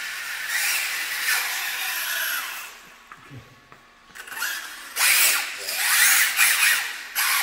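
Small electric RC car's motor whining, rising and falling in pitch as it speeds up and slows, with its tyres hissing on the smooth floor. It drops away for about a second midway, then comes back louder as the car accelerates again.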